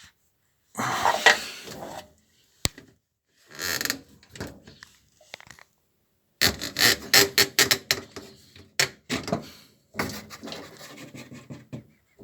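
Scraping, rubbing and clicking as hands and parts are moved about inside an appliance's casing, in several separate bursts with sharp knocks, busiest past the middle.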